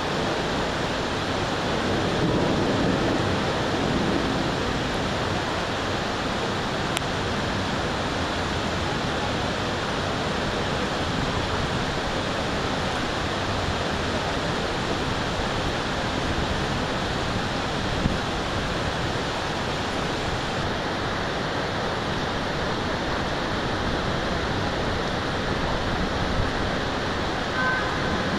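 Heavy storm rain falling in a steady, even hiss. A low rumble swells briefly about two seconds in.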